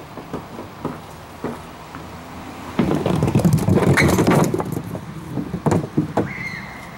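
A small composite bowling ball rolls down a wooden lane and strikes 2/3-scale wooden pins hung on strings. About three seconds in a loud rumble and clatter starts as the pins are hit and topple onto the wooden pin deck, and a few separate knocks follow near the end.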